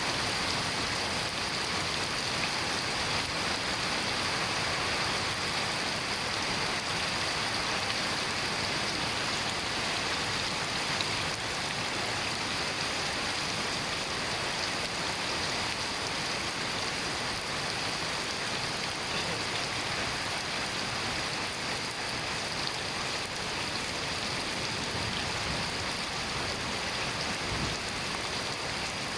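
Steady rain falling, an even, unbroken hiss of many drops with no change in level.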